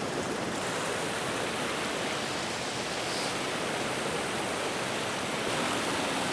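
Waterfall rushing steadily, a constant hiss of falling water.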